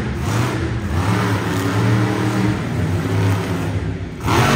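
Monster truck engine revving up and down, with a brief louder surge of noise near the end.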